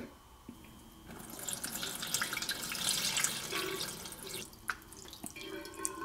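Water poured from a glass carafe splashing through the lid grid into the top water reservoir of a Bunn Speed Brew coffee maker. It starts about a second in and eases briefly near the end before picking up again.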